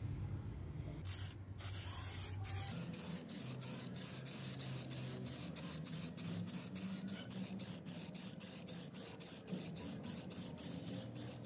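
Aerosol can of primer paint spraying, a steady hiss that starts about a second in.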